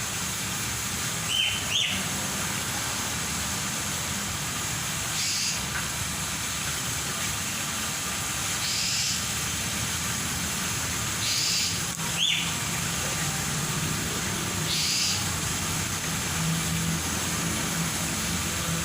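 A bird gives two short gliding calls, about a second and a half in and again about twelve seconds in, over a steady low hum, with soft hissing bursts every three to four seconds.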